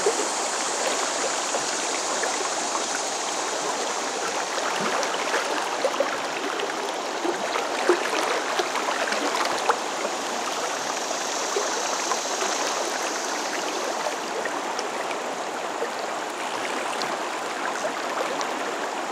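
Shallow, rocky trout river flowing around the microphone: a steady rushing, babbling water sound.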